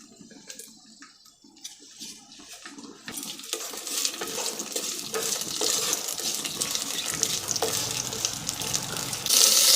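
Thoothuvalai leaves sautéing in ghee in a pan: a few light utensil clicks at first, then a frying sizzle builds from about three seconds in and turns suddenly louder near the end.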